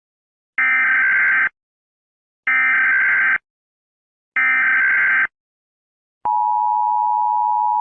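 Emergency Alert System SAME header: three short bursts of data tones, each just under a second long and about two seconds apart. They are followed about six seconds in by the steady EAS attention tone.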